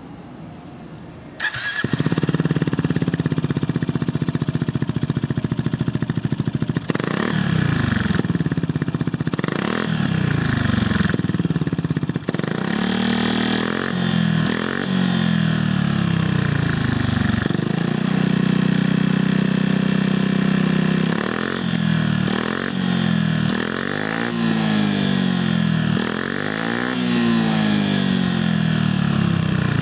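Yamaha Grand Majesty 400 scooter's single-cylinder four-stroke engine, breathing through an OUTEX aftermarket muffler, starting up about a second and a half in and idling. From about seven seconds in it is revved again and again, each rev rising and falling in pitch, with steadier idle stretches between.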